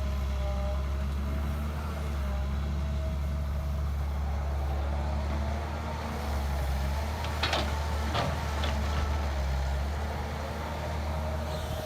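Heavy diesel engine of an excavator loading a dump truck, running steadily with a deep drone and rising and falling in pitch as it works. Three or four sharp knocks come about two-thirds of the way through.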